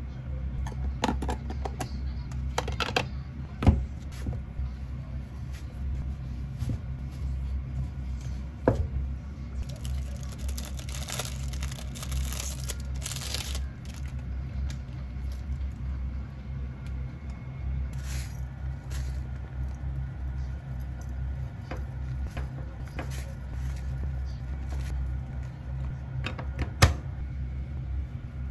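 Kitchen food-prep handling over a steady low hum. A thin plastic bag rustles for a few seconds in the middle, and there are scattered knocks. Near the end a kitchen knife slices shiitake mushrooms and strikes a plastic cutting board with a sharp knock.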